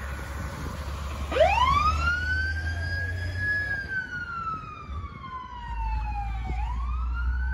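Fire truck siren winding up sharply about a second and a half in, then falling slowly in pitch, and winding up again near the end, over the low rumble of the truck's engine.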